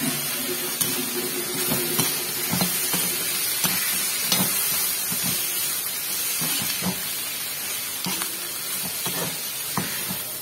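Bitter gourd slices and onions sizzling in a kadai, with a metal ladle scraping and knocking against the pan in short strokes as they are stirred.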